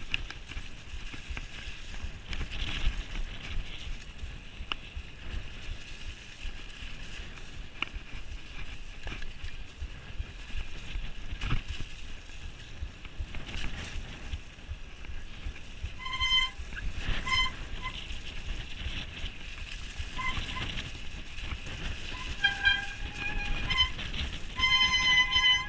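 Mountain bike descending a rough grassy track, heard from the bike: wind buffeting the microphone over a constant rumble, with scattered knocks and rattles from the bike over bumps. From about two-thirds of the way in, short high-pitched squealing tones come and go.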